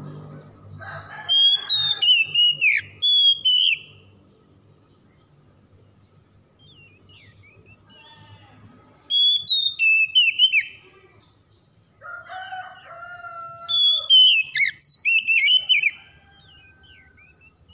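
Oriental magpie-robin singing: three bursts of loud, fast, varied whistled phrases, about a second in, about nine seconds in and from about twelve seconds, with quieter gaps between them. Lower drawn-out calls run under the first and last bursts.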